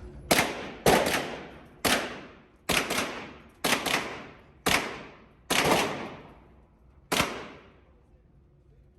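Gunshots fired one at a time, about ten in all, roughly one a second, each with a trailing echo. The firing stops about seven seconds in.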